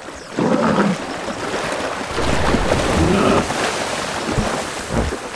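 Water sloshing and splashing as a hippo drinks, coming up about half a second in and swelling louder for a second or so in the middle.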